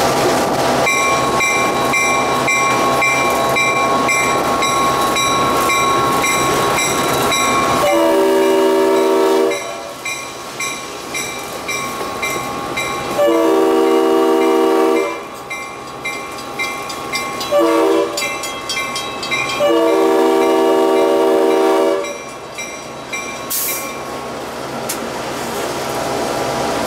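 Train moving with a steady track rumble while a bell rings rapidly and steadily. From about 8 seconds in, the locomotive horn sounds the grade-crossing signal: two long blasts, a short one, then a final long blast, as the train approaches a road crossing.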